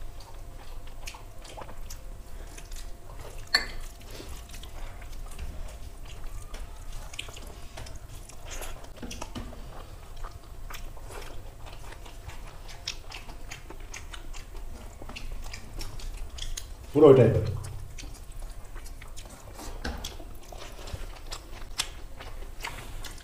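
Two people eating rice and curry by hand: chewing and lip-smacking mouth sounds with small clicks of fingers and food against steel plates. About three quarters of the way through there is one loud, short sound from a voice, the loudest thing here.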